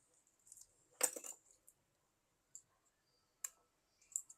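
Light clicks and taps from small tools and parts being handled during smartphone screen repair: a quick cluster of clicks about a second in, then single clicks near the end.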